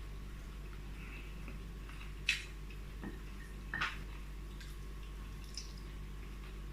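Quiet close-up eating sounds, wet chewing, with two short sharp clicks about two and a half and four seconds in, over a steady low hum.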